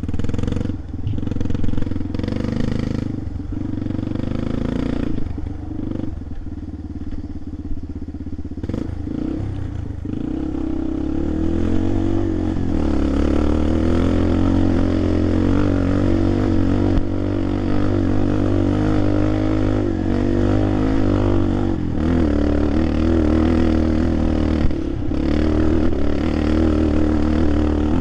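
Off-road vehicle engine running steadily under load, with rattling and clatter over rough ground; it grows louder and pulls harder from about ten seconds in.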